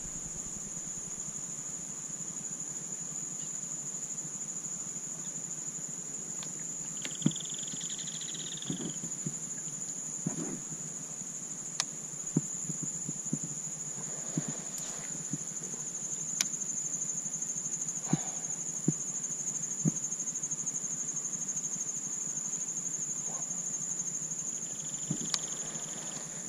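A steady, high-pitched insect chorus, with scattered light clicks and knocks and, twice, a brief call of another kind.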